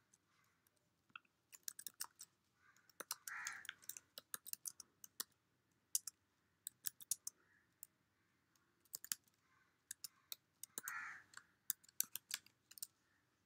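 Typing on a computer keyboard: quick, irregular runs of keystroke clicks, with two short softer noises between them.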